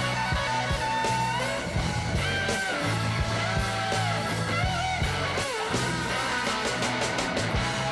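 Background rock music with electric guitar lead bending and sliding over a steady bass and drum beat.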